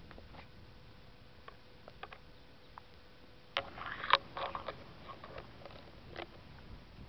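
Turtles feeding and moving about: scattered soft clicks, then a short cluster of crackling clicks and knocks about halfway through.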